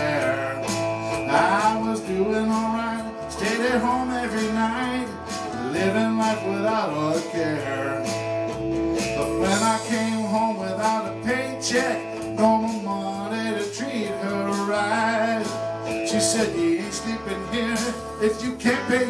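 A man singing a slow blues-country ballad live, accompanying himself on guitar over a pre-produced backing track.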